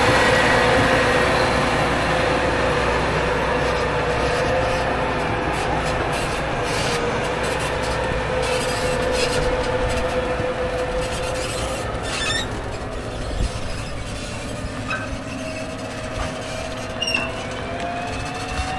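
Case IH Magnum 380CVT tractor's diesel engine running under way with a steady whine, pulling a folded anhydrous ammonia applicator bar and nurse tank, slowly growing fainter as it moves off. The implement and tank wagon rattle and clank now and then, with a couple of sharper clanks in the second half.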